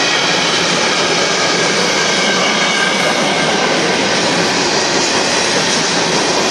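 Union Pacific manifest freight train's cars rolling past: a loud, steady rumble of steel wheels on rail.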